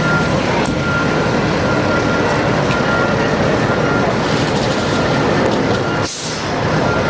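Steady rumble of heavy vehicles and road traffic, with a faint high beeping that comes and goes. A short hiss comes about six seconds in.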